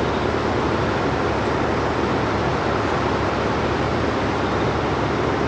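Steady rushing of a river in full flood, its high, fast water running past the bank.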